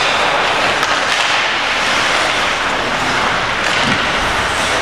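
Steady din of an indoor ice hockey rink during play: skates scraping the ice and general arena noise, with a few faint knocks.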